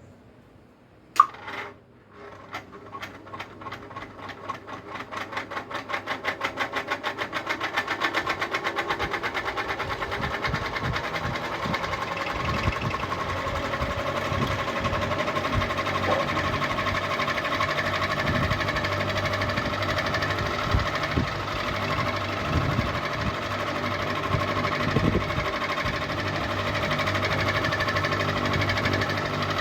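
Ceiling fan switched on with a sharp click, then spinning up: a rhythmic knocking that speeds up over the first several seconds and settles into a steady fast rattle with a hum.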